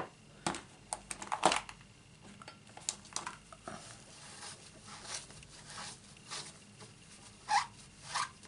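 A clear acrylic stamp block and its rubber stamp being handled and cleaned on a craft desk: scattered light taps and clicks, busiest in the first two seconds, and a few short rubbing swishes near the end as the stamp is wiped clean.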